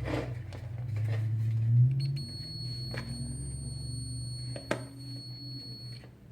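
A multimeter's continuity buzzer sounding one steady high beep for about four seconds, starting about two seconds in, the sign of a closed circuit between the probes; a couple of short clicks fall during the beep. Background music runs underneath.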